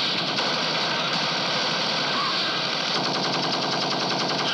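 Sustained automatic gunfire: a dense, unbroken rattle of rapid shots, starting abruptly and holding steady.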